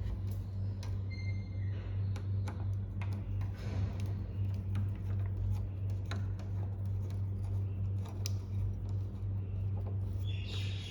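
Irregular light clicks and ticks of small metal parts of an electric door lock being handled during coil replacement, over a steady low electrical hum.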